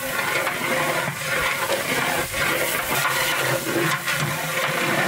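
Watery rice mixture sloshing and swirling in a large metal cooking pot as a long stick stirs it.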